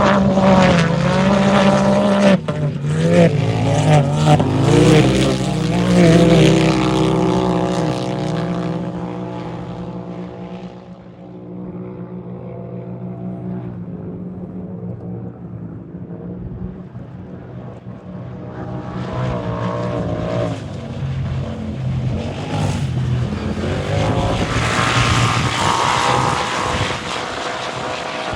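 Off-road race vehicle engines running hard on the course, their pitch rising and falling with revving and shifting. The first vehicle is loud at the start and fades away over about ten seconds; a second one builds up and is loudest near the end.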